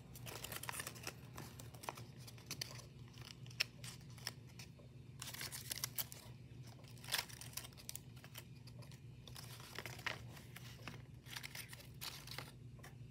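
Folded paper origami figures rustling and crinkling faintly as hands turn and handle them, in scattered short rustles over a low steady hum.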